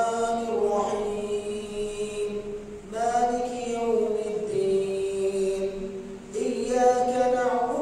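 A solo male voice reciting the Quran aloud in a slow, drawn-out melodic chant. A held phrase ends, and new phrases begin about three and about six seconds in.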